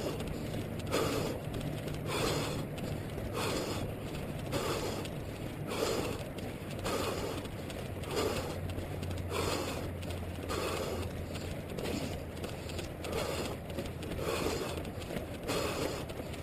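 A runner's footfalls at a steady stride, with heavy breathing in time with it, picked up by a camera worn on his head.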